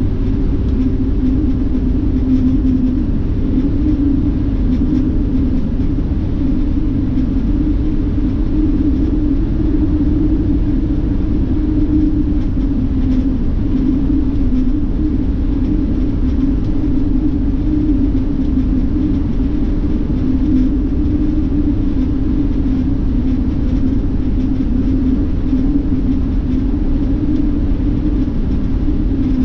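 Steady rumble of a coach bus travelling at highway speed, heard from inside the cabin: engine drone and road noise with a constant low hum.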